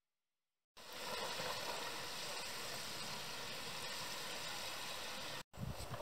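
Steady rushing noise of wind in a snowstorm, cutting in abruptly about a second in and breaking off for an instant near the end.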